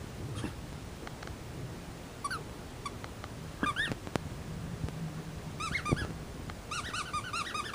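Australian shepherd puppy whining: short high-pitched whines that rise and fall, a few single ones at first, then quick runs of them in the last couple of seconds.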